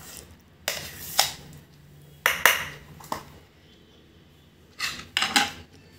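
Steel spoon clinking and scraping against a steel tiffin box as soft semolina halwa is scooped out, in several short sharp metallic clicks that come in small clusters.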